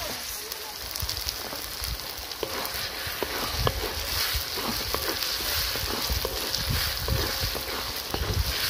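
Curry spice paste sizzling in a wok as a wooden spatula stirs and scrapes through it, with scattered light knocks of the spatula against the pan.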